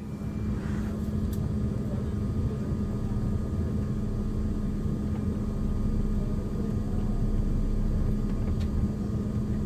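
Cabin noise inside a Boeing 787-9 on the ground: a steady low rumble from the engines at idle and the air system, with a steady hum running under it.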